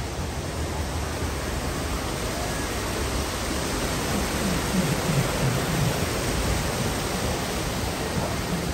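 Steady rush of a rocky mountain stream cascading over small weirs, with faint voices of passers-by about halfway through.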